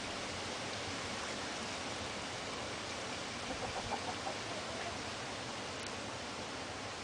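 Steady outdoor background hiss, with a few faint short chirps around the middle.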